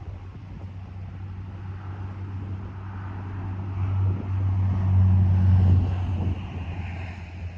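An engine passing close by, its low hum growing louder to a peak about five to six seconds in, then fading.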